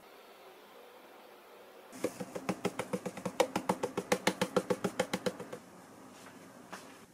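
Dried parsley sprinkled from a spice jar: a quick, even run of sharp clicks, about eight a second, lasting three and a half seconds, with one lone click near the end.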